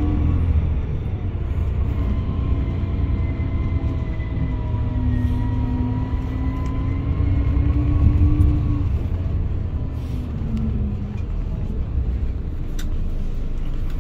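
Coach engine running at low speed, heard from inside the cabin: a steady low rumble with a faint whine that wavers slowly in pitch.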